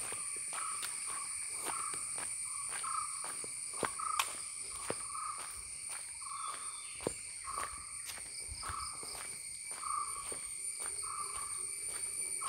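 A steady high-pitched drone of insects, with a short mid-pitched call repeating about once a second, and the faint steps of someone walking.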